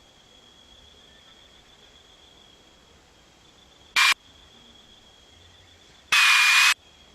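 Two abrupt bursts of static-like hiss, a short one about four seconds in and a longer, louder one near the end, each starting and cutting off suddenly, over a faint steady high whine.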